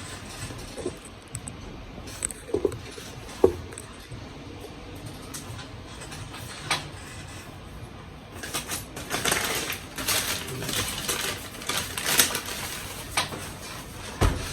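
McDonald's paper bags and food wrappers being handled: a few scattered knocks and clicks, then from about eight seconds in a busy stretch of crinkling, rustling paper.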